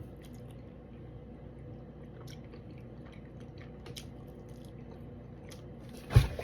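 A person chewing a mouthful of fish close to the microphone, with many small wet clicks of the mouth. One heavy thump near the end is the loudest sound.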